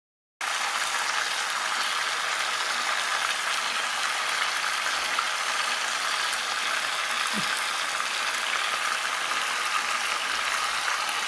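Mutton leg frying in hot oil in a wok, the oil sizzling and crackling steadily. It starts abruptly about half a second in.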